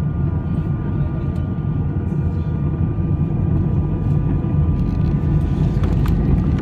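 Airbus A320 jet engine noise heard inside the cabin: a loud, steady low rumble with faint steady whining tones above it, growing slightly louder near the end.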